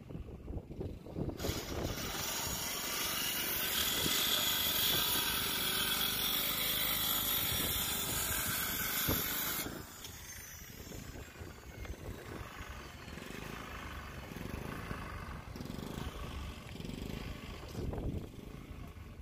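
Outdoor harbour ambience: wind rumbling and buffeting the microphone in irregular gusts, under a steady hiss that stops abruptly about ten seconds in, leaving only the wind rumble.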